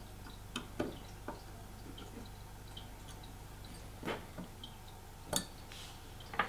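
Light metallic clicks and ticks of a hex key working a grub screw in a small shaft coupling on a telescope focuser's pinion shaft, with a few sharper taps in the second half.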